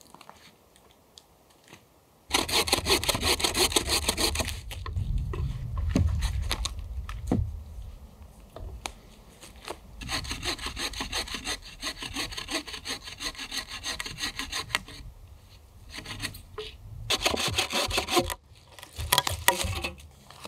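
Folding hand saw cutting through a dead log in bouts of rapid back-and-forth strokes. The sawing starts about two seconds in and stops briefly a few times between bouts.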